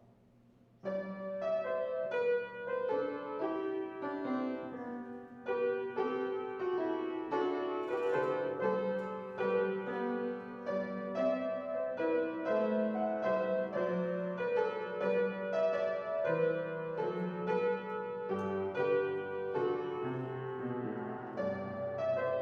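Piano playing an instrumental piece, with chords and a melody line. It begins about a second in after a near-quiet moment.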